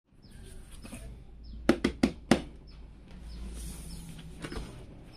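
Hands handling a cardboard graphics card box, with four quick knocks or taps close together about two seconds in, over a low steady hum.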